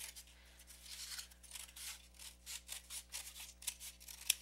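Scissors cutting through a cardboard egg carton at the hinge to take the lid off: a run of short, irregular snips and crunches, with one sharper snip near the end.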